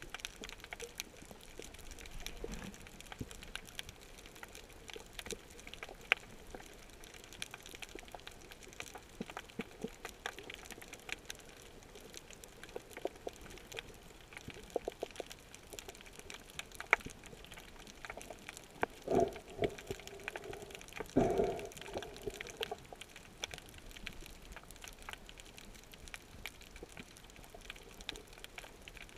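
Underwater sea ambience picked up by a submerged camera: a faint hiss with many scattered small clicks and crackles, and two louder short bursts about two-thirds of the way through.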